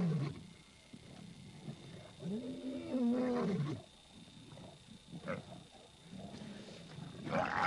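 A lion roaring: the tail of one long, deep call at the start, a full long call about two and a half seconds in, then shorter, fainter calls and a rougher, louder one near the end.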